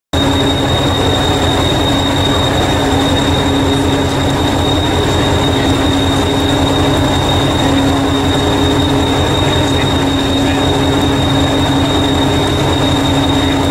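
Idling engine of a stationary diesel multiple unit, the preserved Hastings unit 1001: a steady rhythmic low throb with a constant hum and a thin high whine above it.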